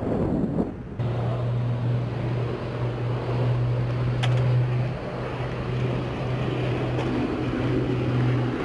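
A steady low mechanical hum with a rumbling wash over it. It starts abruptly about a second in, and there is a sharp click about four seconds in.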